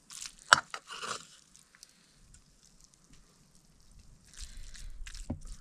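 A few sharp clinks and clatter of kitchen utensils in the first second, the loudest about half a second in. Then quiet, with faint rustling and handling noise near the end.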